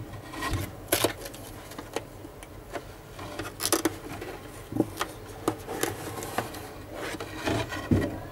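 Handling noise as a headset is pulled out of its cardboard packaging box: irregular rustles, scrapes and knocks of plastic against the box, the loudest right at the start and near the end.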